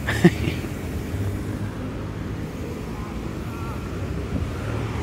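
Steady low rumble of a vehicle driving, with a short louder sound just after the start.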